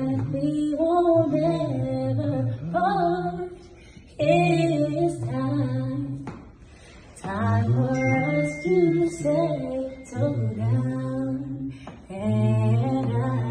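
A man singing a slow melody unaccompanied, in long held phrases with short pauses between them.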